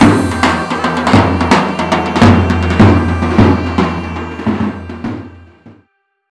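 Intro music with a steady drum beat and bass, fading out about five seconds in and ending in silence.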